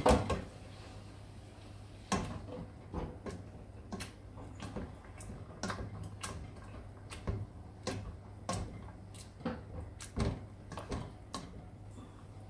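Masher knocking and scraping against a stainless steel pot while mashing cooked pumpkin: irregular clicks and taps, about one or two a second, over a steady low hum.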